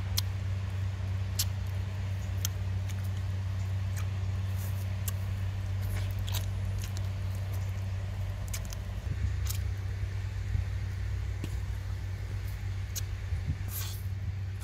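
A man eating cooked chicken feet: scattered sharp clicks and cracks of chewing and biting the bony feet, over a steady low motor-like drone.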